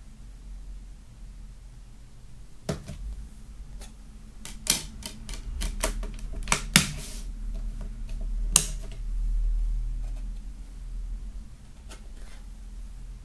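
Sharp plastic clicks and taps from a CD digipak's plastic disc trays as discs are pressed onto and lifted off the centre hubs, bunched in the middle few seconds, with the loudest click about two-thirds of the way through.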